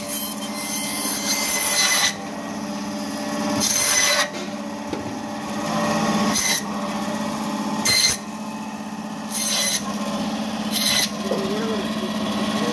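Electric band saw running with a steady hum, its blade rasping through rohu fish flesh and bone in about six bursts as steaks are cut: the first lasts about two seconds, the rest under a second each.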